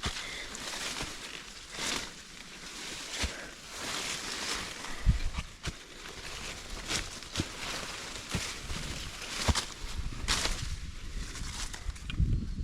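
Footsteps climbing a steep dirt mountain trail, with irregular scuffs and crunches and the rustle of leaves and undergrowth brushing past.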